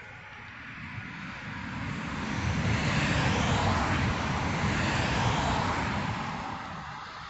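A vehicle passing by: a rush of noise with a low rumble that swells to a peak about three to five seconds in, then fades away.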